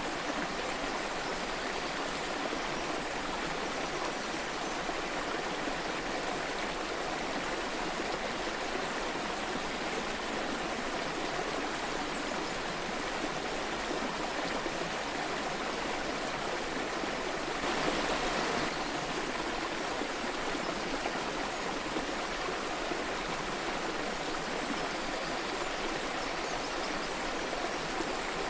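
Waterfall rushing steadily, an even hiss of falling water, briefly swelling a little louder about two thirds of the way through.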